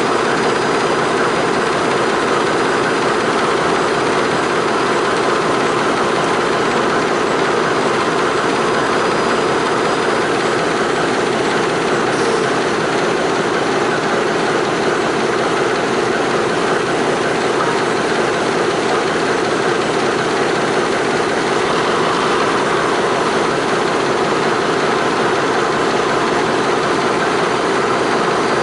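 Engine of a vintage railroad crane running steadily, with no change in speed or load.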